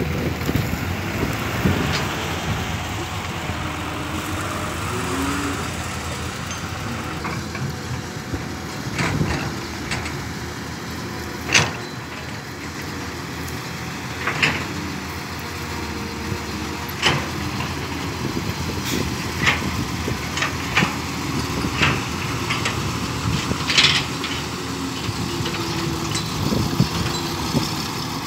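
Diesel engine of a loaded 8-ton dump truck running steadily as the truck drives toward the camera over a rough dirt field track. Sharp knocks break in every few seconds.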